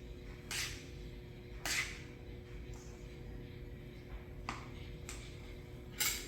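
Four short clinks and scrapes of a spoon against dishes while food is served, spread over a few seconds, above a faint steady hum.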